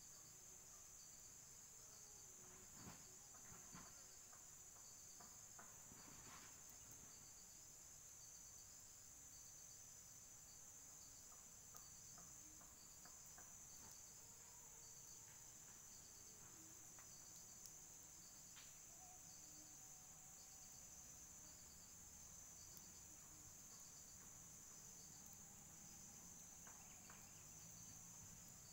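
Faint, steady, high-pitched insect chorus, with a few faint ticks scattered through it.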